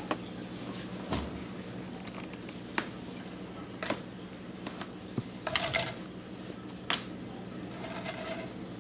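Glass bug jar knocked about on a hardwood floor by a kitten: a handful of sharp knocks and clinks spaced out, with a quick flurry of them a little past halfway, over a steady low hum.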